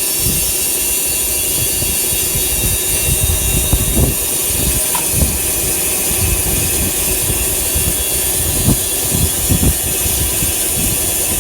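A machine running steadily, with a constant high hiss and irregular low knocks.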